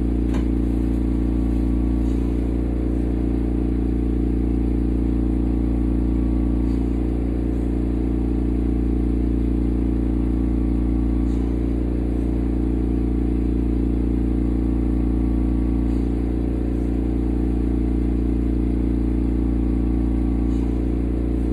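Steady low machine hum: a drone of several constant tones that holds unchanged throughout, with a few faint clicks.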